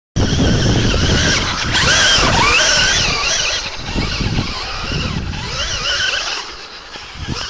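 Electric motor drive of a Traxxas E-Maxx RC monster truck on a 3S LiPo whining, its pitch rising and falling as the throttle is worked, over a rough rushing noise as the tyres churn through sand. Loudest in the first few seconds, easing off near the end.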